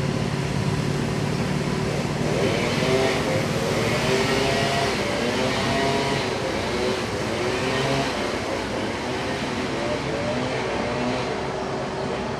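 A motor vehicle running steadily, with a constant hum and wavering higher tones from about two to eleven seconds in.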